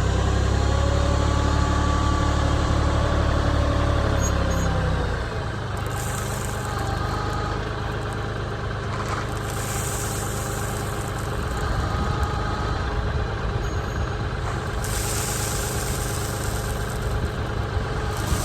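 Kioti CK3510SE compact tractor's diesel engine running steadily, with a heavy low rumble for about the first five seconds that then drops to a lighter, quieter run.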